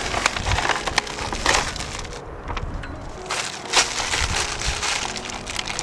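Plastic packaging crinkling and rustling in irregular crackles as the bag of garden-bed hardware and edging is handled.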